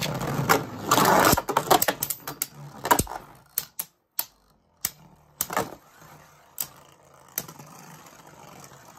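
Two Beyblade Burst spinning tops battling in a plastic stadium. A dense clatter of clashes and scraping runs for the first three seconds, then the tops strike each other in separate sharp clicks about once a second.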